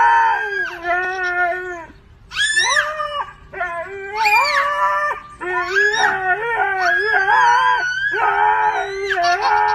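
A husky howling in a series of long calls that glide up and down in pitch, broken by short pauses, with a toddler yelling along at times.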